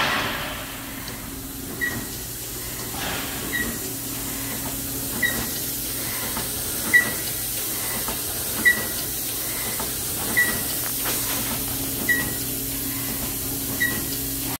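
Steady factory machine hum with a high hiss, cut by a short high-pitched beep about every 1.7 seconds. A sudden loud bang right at the start dies away within about half a second.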